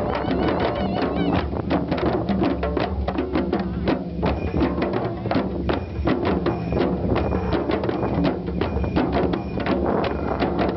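A group of djembe hand drums, with a frame drum struck by a felt beater, playing a steady rhythm together.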